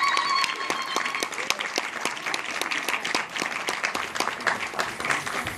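Audience clapping and applauding, with a long high-pitched cheer held through about the first second.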